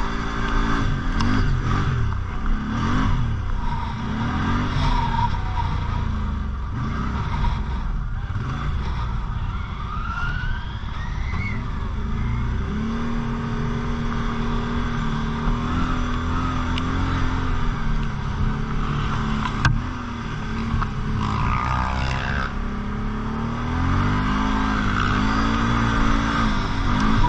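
Quad bike (ATV) engine running under load, its pitch rising and falling again and again as the throttle is opened and eased, with a steadier stretch in the middle.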